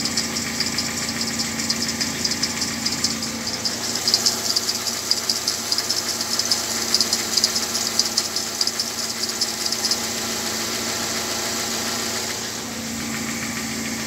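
Car engine idling while its slipping alternator drive belt gives a rapid, high squealing chirp. The squeal fades out about ten seconds in, leaving the plain idle.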